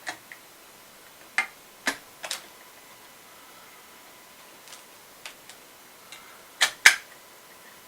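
Irregular sharp plastic clicks and taps as the internal plastic cover of an EPYC CPU socket is pried and poked to lift it out, the loudest pair coming close together near the end.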